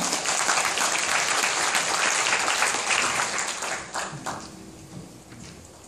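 Audience applauding, dying away with a few last claps about four seconds in.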